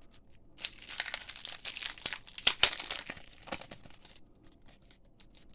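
A trading-card booster pack wrapper being torn open and crinkled by hand, with dense crackling that is loudest midway and thins to a few scattered crackles near the end.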